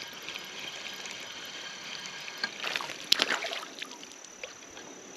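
Creek water running steadily, with a short burst of splashing about three seconds in.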